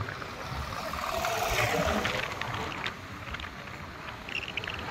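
Wind rushing over the microphone of a Yamaha Aerox scooter riding along a dirt road, with the scooter's engine and tyres on the unpaved surface running underneath.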